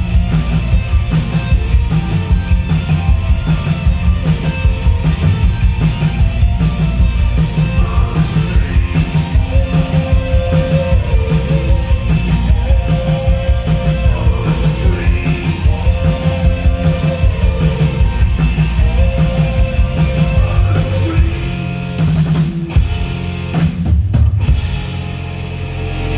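Live rock band playing loud, with driving drums, guitar and singing. Near the end the band breaks into a few short stop-start hits.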